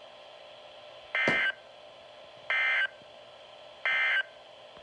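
Three short bursts of NOAA Weather Radio SAME digital data tones, the end-of-message code that closes the flood warning broadcast. Each burst is a warbling buzz about a third of a second long, coming about 1.3 seconds apart over faint receiver hiss.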